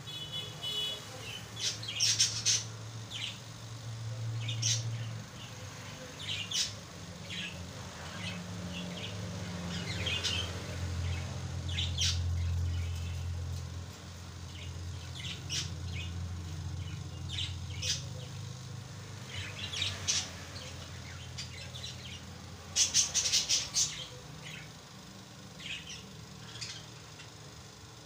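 Pet lutino rosy-faced lovebirds chirping: short, sharp calls scattered through, with a quick run of louder chirps near the end. A low rumble runs underneath, strongest around the middle.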